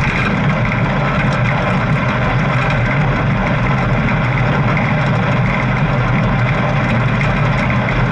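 Steady low rumble of riding a bike, picked up by an action camera mounted on it: unbroken wind and vehicle noise that does not change.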